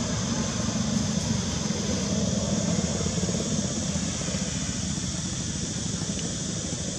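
Steady low rumble with a hiss over it, swelling slightly a few seconds in, with no distinct events.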